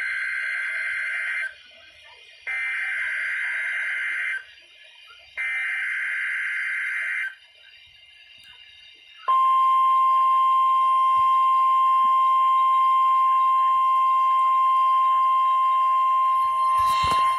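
NOAA Weather Radio Required Weekly Test heard through a Midland WR-120EZ weather radio's speaker. First come three buzzy SAME digital header bursts, each about two seconds long with a second's gap between them. After a short pause, the steady 1050 Hz warning alarm tone begins about nine seconds in and holds, with a brief crackle near the end.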